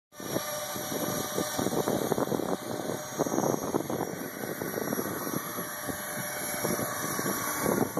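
Radio-controlled model helicopter running, its motor and rotor noise mixed with gusty wind buffeting the microphone.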